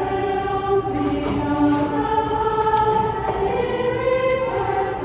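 A large choir singing long held notes together with a live orchestra, the chords shifting about once a second.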